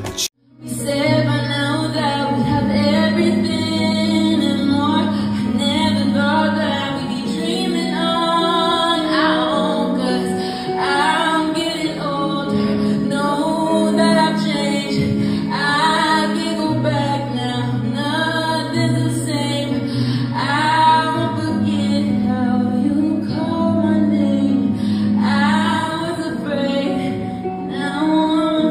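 A woman singing a slow, melodic song into a microphone, accompanied by electric guitar with sustained low notes underneath. The sound starts after a brief dropout right at the beginning.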